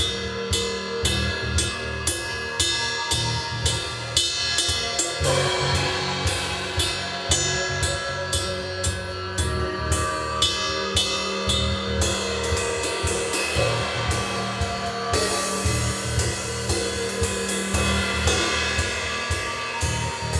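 Improvised drum-kit and cymbal playing: an even cymbal pattern of about three strokes a second with drum hits, over sustained pitched tones from other instruments. About three-quarters of the way through, a fuller cymbal wash comes in.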